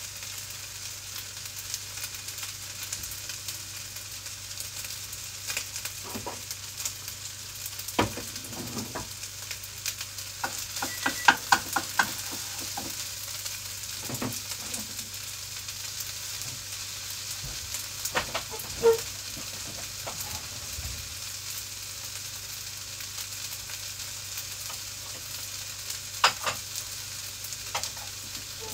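Fried rice sizzling steadily in a pan as it is stir-fried, with a utensil knocking and scraping against the pan now and then, most in a quick run about eleven seconds in. A steady low hum sits underneath.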